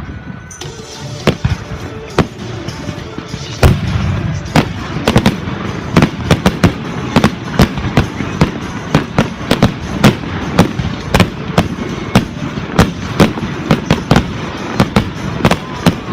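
Fireworks display: aerial shells bursting, a few scattered bangs at first, then a big boom about four seconds in and a fast barrage of several bangs a second after it.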